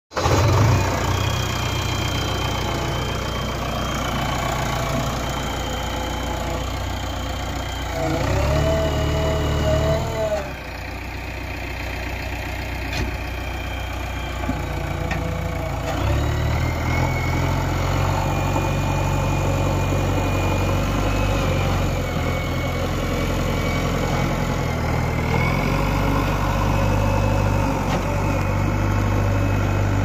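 JCB 3DX backhoe loader's diesel engine running as the machine works. Its note steps up in load about 8 seconds in, eases off a couple of seconds later, and picks up again from about 16 seconds, with a higher whine over it during the first spell.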